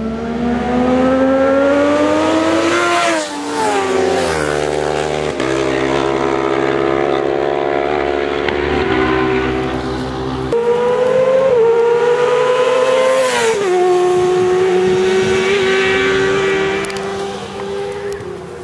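Racing motorcycle engines at high revs. The pitch climbs as they accelerate and drops sharply with a gear change about three seconds in. A second rise comes about halfway through, then another sharp drop, and the pitch holds steady near the end.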